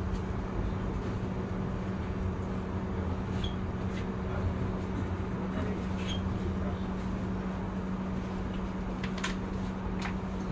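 MÁV InterCity passenger carriage rolling along the track, heard from inside the coach: a steady rumble with a constant low hum. Near the end come a few sharp clicks as the wheels run over the track.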